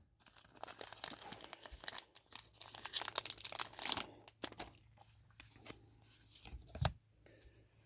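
Plastic card-pack wrapping being torn open and crinkled by hand, a dense crackle for the first four seconds or so that then thins to occasional rustles. A single knock comes near the end.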